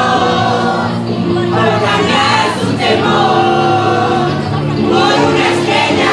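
A young man singing a Spanish-language song into a handheld microphone over a karaoke backing track.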